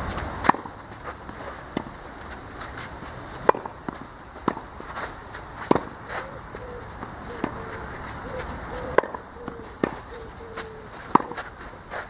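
Tennis rally on a clay court: sharp pops of the ball coming off the racket strings and bouncing, a second or two apart, with footsteps scuffing on the clay.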